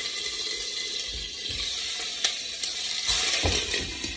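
Salmon pieces sizzling in hot vegetable oil in a frying pan, a steady hiss. There is a sharp click about two seconds in, and a louder burst of sizzling a little after three seconds as another piece goes in.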